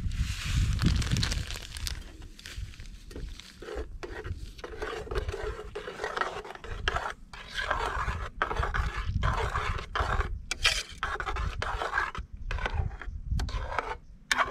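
A spoon scraping and stirring thick pirão (crab broth mixed with cassava flour) in a pot: repeated rasping strokes with short pauses, over a low rumble.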